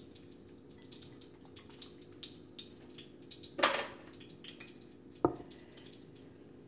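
Kitchen handling noises: small clicks and taps of utensils over a steady low hum, with a short rush of noise about three and a half seconds in and a single sharp knock over a second later.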